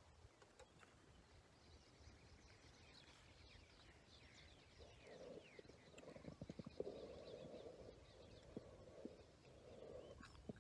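Quiet eating by hand: chewing and short clicking mouth and handling sounds, loudest in the second half, over faint bird chirping in the first half.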